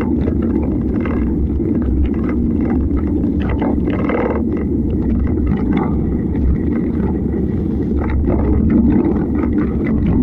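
Steady low wind rumble on the microphone of a camera mounted on a moving mountain bike, with scattered rattles and crunches as the tyres and bike run over a stony dirt trail.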